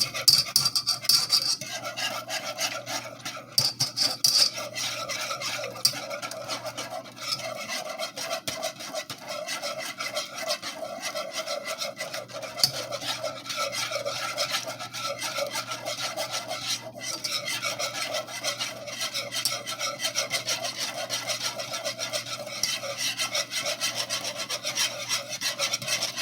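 A utensil stirring grits in a saucepan, with rapid, continuous scraping strokes against the pot.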